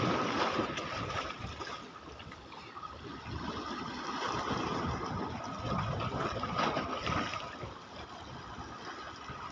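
Sea water washing and gurgling at the shore, swelling and easing in surges.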